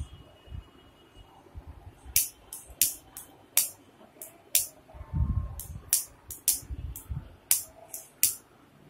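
Small decorative bells jingling in about a dozen short, bright tinkles as they are handled and threaded onto macrame cords, with a couple of low handling bumps.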